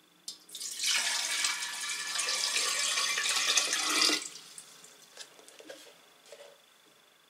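Water poured from a plastic jug into a 3-litre glass dispenser jar, splashing into the jar for about three and a half seconds and then stopping. A few faint clicks follow.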